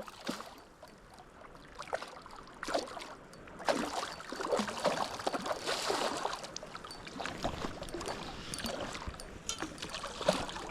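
Creek water splashing and sloshing irregularly, busier from a few seconds in.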